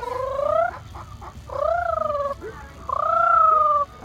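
Domestic fowl calling: three long drawn-out calls about a second apart, each bending up in pitch and then down, the last one the loudest.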